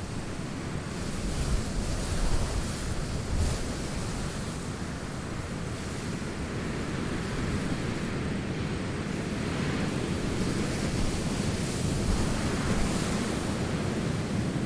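Wind blowing: a steady rushing noise with a low rumble, swelling a little now and then.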